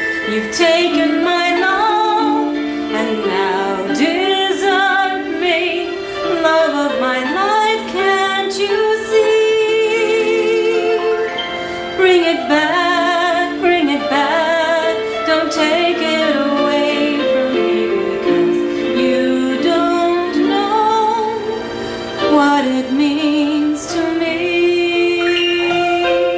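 A pop ballad playing, with a wordless sung melody that wavers with vibrato and holds long notes over the backing music.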